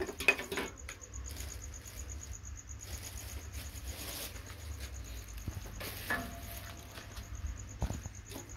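Crickets chirping steadily in a high, evenly pulsed trill. A few light knocks come near the start, and a short falling squeak about six seconds in.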